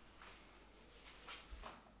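Near silence with a few faint soft rustles and light handling sounds, about a second in and again near the end, as small decorations are moved on a coffee table.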